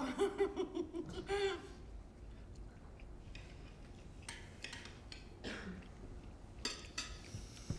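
A voice for about the first second and a half, then quiet with a few faint clicks of cutlery against dishes.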